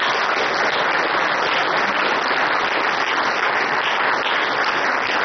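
Large audience applauding steadily: a welcoming round of applause for a speaker walking onto the stage.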